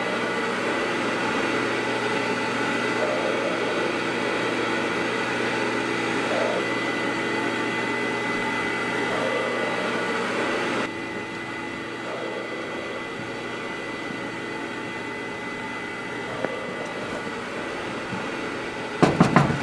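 Steady background hum and hiss with no words, dropping noticeably in level about eleven seconds in.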